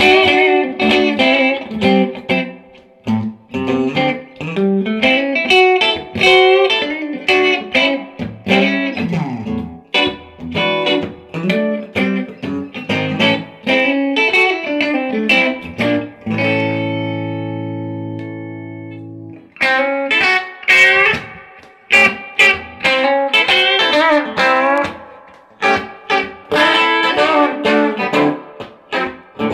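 1970 Gibson Les Paul Custom electric guitar played through a 1966 Fender Pro Reverb valve amp with no pedals: a stream of quickly picked single notes and chord fragments. A little past the middle, one chord is left ringing for about three seconds before the fast playing starts again.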